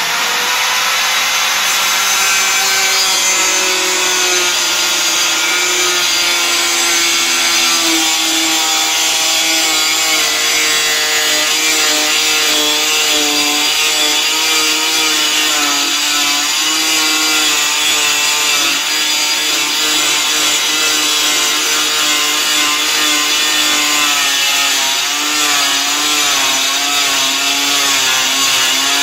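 Handheld electric power cutter running continuously as it cuts through a GRC fibre-cement board, its motor pitch wavering and dipping as the blade bites the board.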